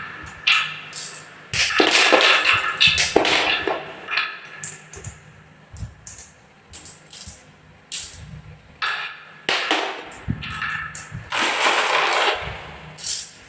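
Marbles rolling and clattering down a wooden marble run: irregular clacks and rattling runs with short gaps, loudest at about two seconds in and again near the end.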